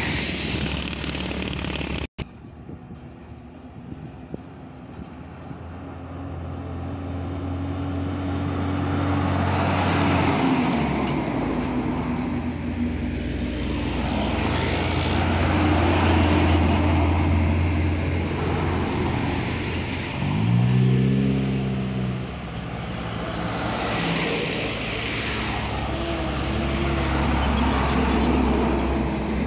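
Highway traffic: motorcycles and diesel trucks passing one after another, engines droning and tyres on asphalt, swelling and fading as each goes by. There is a brief pitched sound about a second long a little over two thirds of the way in. Near the end a Hino Ranger container truck passes close by.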